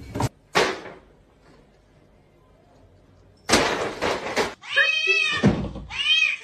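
A domestic cat meowing twice near the end, two short calls that bend in pitch, just after a loud burst of noise.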